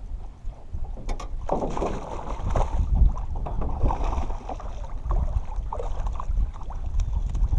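A hooked bass splashing at the surface beside a boat as it is scooped into a landing net, with wind rumbling on the microphone. There are a couple of sharp knocks about a second in.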